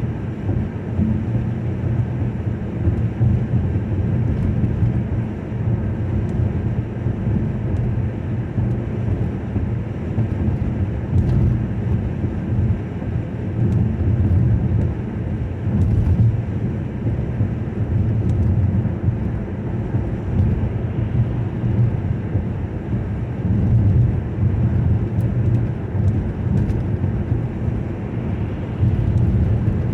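A car driving on the road, heard from inside the cabin: a steady low rumble of tyres and engine at cruising speed, with a few faint clicks.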